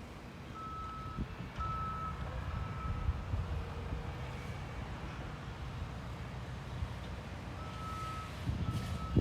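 Vehicle back-up alarm beeping: three evenly spaced beeps in the first few seconds, then two more near the end, over a low rumble.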